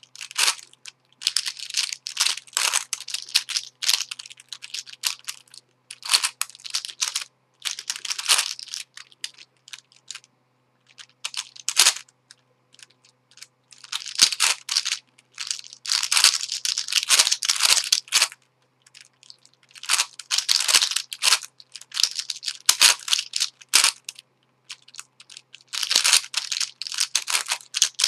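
Plastic layers of a Witeden 3x3x9 cuboid twisty puzzle clicking and clacking as they are turned fast by hand, in bursts of rapid turns broken by short pauses.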